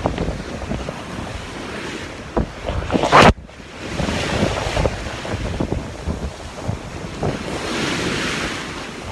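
Sea waves washing in, with wind buffeting the microphone in rumbling gusts. About three seconds in, a loud, sharp knock or bump cuts briefly through.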